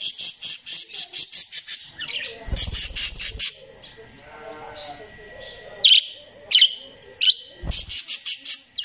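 Parakeets chirping and chattering: fast runs of high, sharp chirps, softer warbling chatter in between, and three single sharp calls a little past the middle. A brief low thud comes near the end.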